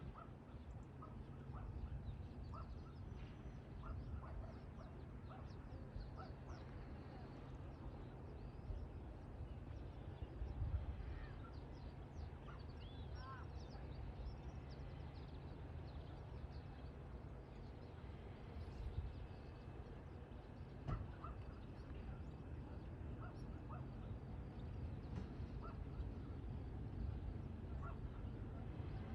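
Birds calling outdoors in short, scattered chirps and calls over a steady low rumble of wind and distant ambience; no aircraft engine is clearly heard yet.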